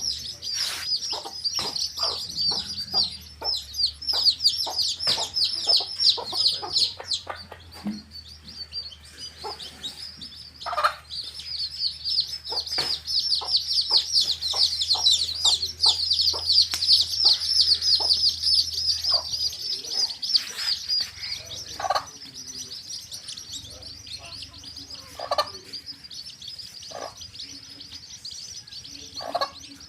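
A brood of baby chicks peeping in rapid, high, downward-sliding chirps, densest in two long stretches, with a hen giving short clucks now and then.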